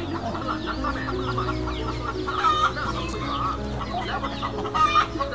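A flock of hens clucking, with many short calls overlapping.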